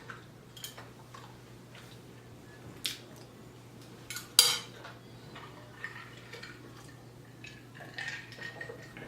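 Cutlery clinking and scraping on a plate while eating, with soft mouth and eating sounds between: a handful of short scattered clicks, the sharpest about four and a half seconds in and a small run of them near the end.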